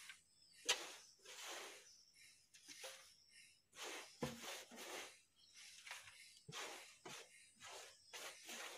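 Loose wood shavings rustling as handfuls are scooped from a wheelbarrow and dropped into a steel drum, in a string of short swishes. There is a sharp click about a second in.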